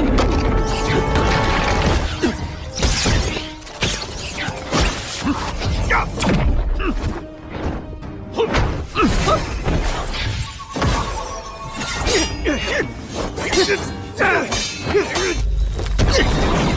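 Fight-scene soundtrack from an animated martial-arts series: dramatic music layered with repeated impact, crash and shattering sound effects.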